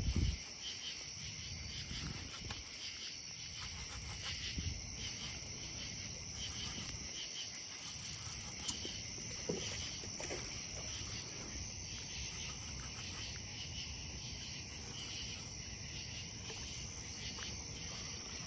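Steady chorus of crickets trilling, with a brief knock at the very start and a few faint clicks.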